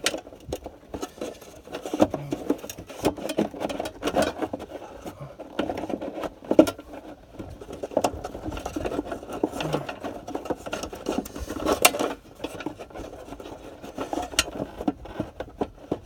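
Irregular rustling and scraping with sharp plastic clicks and knocks as a new air filter element is worked into its plastic housing. The loudest knocks come about six and a half seconds in and again near twelve seconds.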